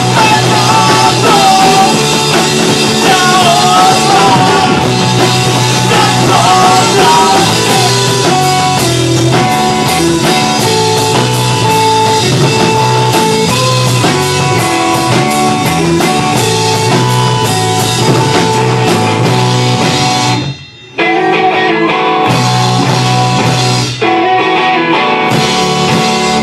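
Rock band playing live: sung vocals over electric guitars and a drum kit, with the singing dropping out after several seconds. About twenty seconds in the band stops dead for a moment and crashes back in, then breaks off briefly once more near the end.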